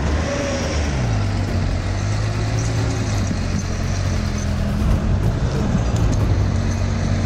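Timberjack 240C skidder's diesel engine working under load as it drags logs. Its note drops about a second in, then holds steady.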